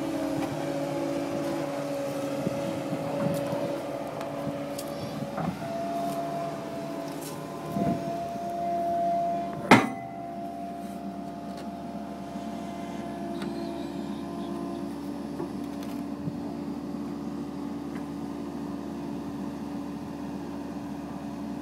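Kobelco 135SR excavator running steadily while digging in a trench, with a steady hum of several tones. A single sharp knock about ten seconds in, just after a brief swell in loudness.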